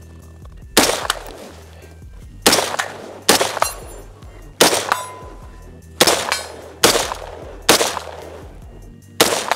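AR-15-style semi-automatic rifle fired eight times in slow, unevenly spaced succession, about one shot a second, each shot followed by a short echo.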